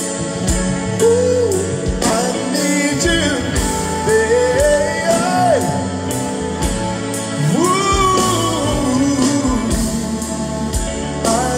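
Live band music: a male singer sings long, sliding vocal runs without clear words over a steady bass line and drum beat.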